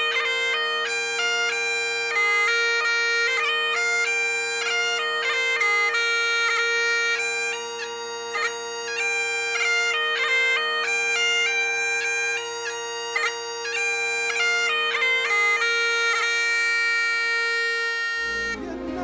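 Bagpipes playing a tune over steady, unbroken drones. The pipes stop shortly before the end, and other music with a beat comes in.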